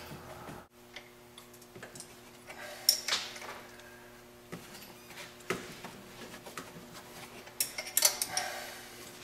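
Scattered light metallic clicks and taps of hand tools and parts being worked on the turbo fittings of a Ford 6.0L Power Stroke diesel, the loudest about three seconds in and again near the end, over a faint steady hum.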